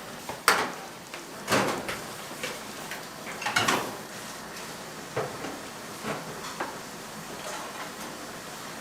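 Kitchen clatter: dishes and utensils being handled, with about six sharp knocks at uneven intervals, the loudest about half a second in.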